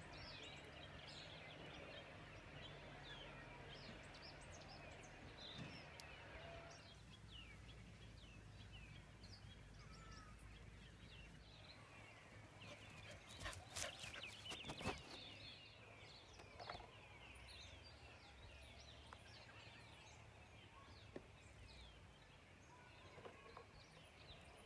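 Faint birdsong: many small birds chirping, with a few sharp clicks or knocks about halfway through.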